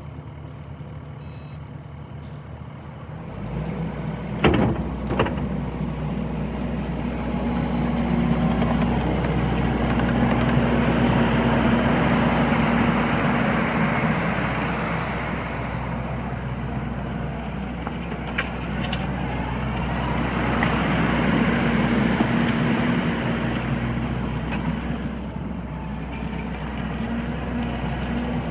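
Kubota SVL90-2 compact track loader's diesel engine running. It grows louder about three seconds in, with a sharp knock a second later, then swells and eases twice as the machine works.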